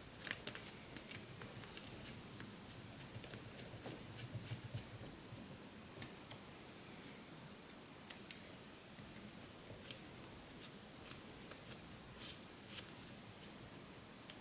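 Small sharp clicks and ticks of screws and parts being handled and fitted on a carbon-fibre quadcopter frame. There are a few louder clicks just after the start, a faint rustle of handling, then more scattered clicks through the second half.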